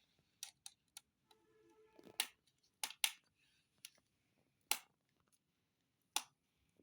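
Scattered sharp clicks and taps of small computer hardware being handled while fitting an M.2 SSD, about eight over several seconds, with a faint brief hum about a second and a half in.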